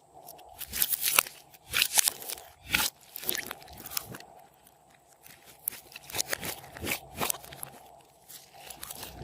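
Glossy slime being squished and stretched by hand: irregular sticky crackles and pops, several a second, with a couple of short pauses.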